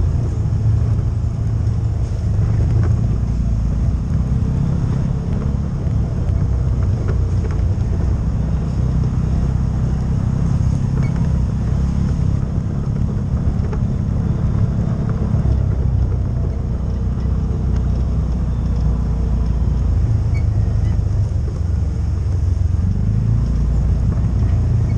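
CFMOTO UForce side-by-side running along a rough, rocky dirt trail: a steady low engine and drivetrain rumble whose pitch shifts a few times as the throttle changes.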